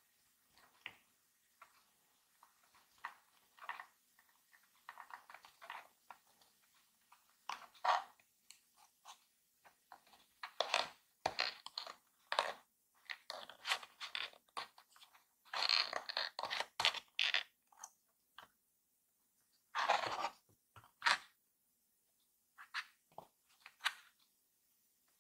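Card parts of a paper karakuri toy being handled and pressed together by hand: irregular short rustles, scrapes and light taps of stiff paper, busiest in the middle of the stretch, with a louder rustle about twenty seconds in.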